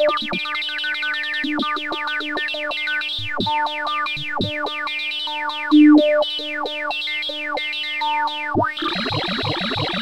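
Computer-generated sine-wave tones from a running insertion sort, each comparison of two numbers playing sine waves pitched by their values: a rapid stream of overlapping beeps and short gliding tones over a few held notes. Near the end it changes abruptly to a denser, faster, evenly repeating pattern as a bubble sort begins.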